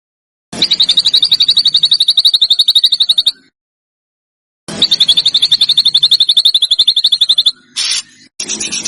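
A songbird's rapid trill, about ten sharp notes a second, sung in two bouts of about three seconds each with a silent gap between, then a brief short call near the end.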